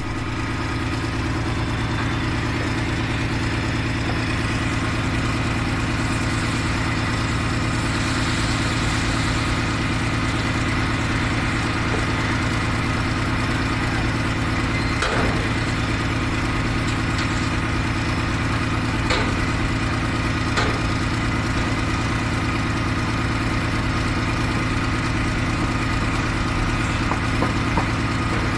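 HOWO dump truck's diesel engine running steadily at low revs close by, with a few short knocks about halfway through.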